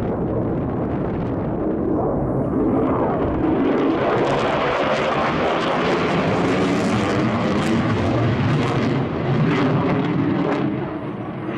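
Jet noise from an F-35B Lightning II's single F135 turbofan engine: a loud roar that swells and brightens about three seconds in, with a few sharp crackles, and eases off near the end.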